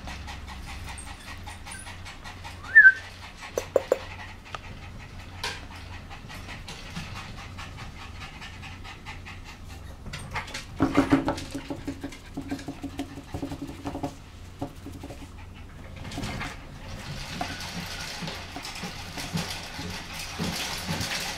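Three-month-old poodle puppy panting, with a short high squeak about three seconds in.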